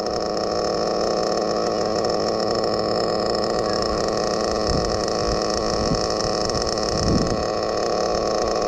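Small .12 nitro engine of a Kyosho FW06 RC car idling steadily, a smooth even running that suggests a good tune.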